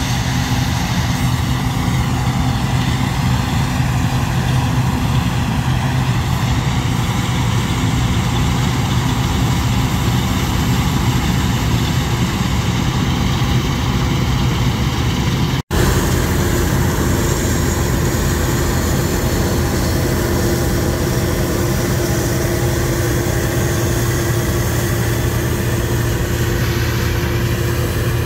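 Bizon Rekord Z058 combine harvester at work: its six-cylinder SW-680 diesel engine and threshing machinery running steadily under load, with a constant low hum. The sound drops out for an instant about two-thirds of the way through, then carries on with a higher steady hum added.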